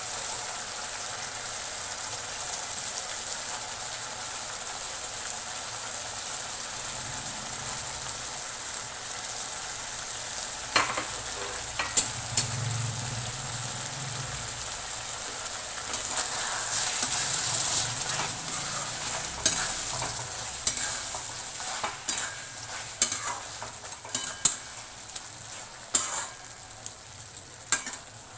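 Curry gravy sizzling and bubbling steadily in a metal kadai as kofta balls are added. In the second half a spatula stirs and knocks against the pan, with sharp clicks from about eleven seconds in that grow more frequent.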